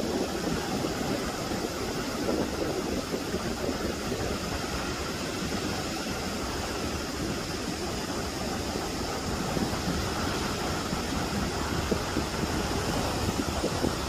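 Steady wind buffeting the microphone over the continuous rush of breaking surf.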